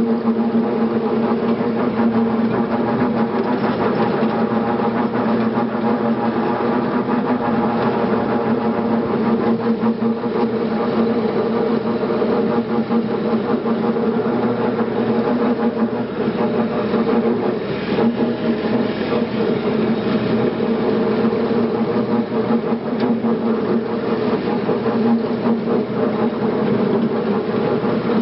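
Farm tractor engine running steadily under way, a constant engine note.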